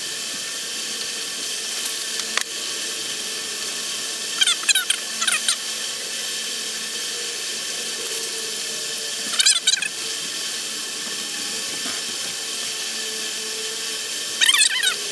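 A coffee filter squeaking as it is rubbed over the clean, dry metal of the engine's bedplate and bearing saddles, in three short bursts about five seconds apart, over a steady hiss.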